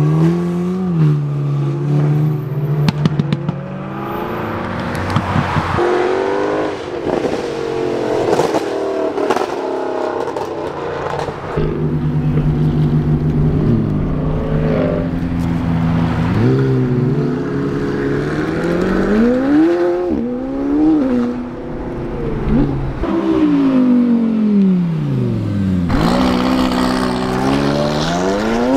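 Several cars pulling out one after another and accelerating away, their engines revving up and dropping back again and again, among them McLaren twin-turbo V8 supercars. A cluster of sharp crackles comes a few seconds in.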